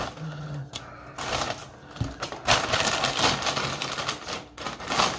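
Paper takeout bag rustling and crinkling in irregular bursts as hands dig into it and pull food boxes out.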